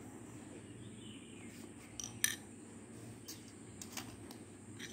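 Faint room noise with a handful of light clicks and taps in the second half, the sharpest a little over two seconds in: a pencil and ruler being handled on paper.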